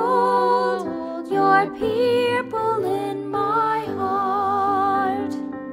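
Woman singing the last line of a hymn's refrain over instrumental accompaniment. She ends on a long held note with vibrato that stops about five seconds in, while the accompaniment rings on and fades.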